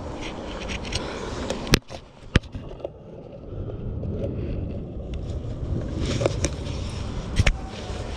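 Rumbling and rustling handling noise from a body-worn camera on a moving airsoft player, with three sharp clicks or cracks: two close together about two seconds in, and one near the end.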